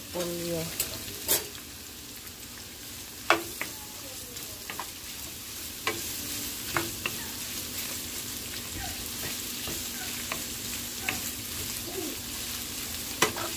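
Shredded cabbage and carrot sizzling in hot oil in a pan while being stir-fried with a wooden spatula, with a steady hiss and sharp clacks of the spatula against the pan every second or few.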